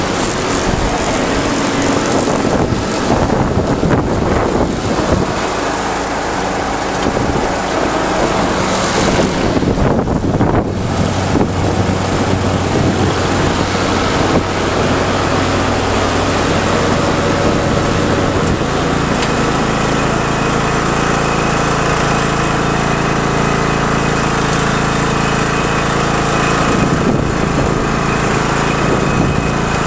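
John Deere L100 riding lawn mower's engine running steadily, its note changing slightly about two-thirds of the way in.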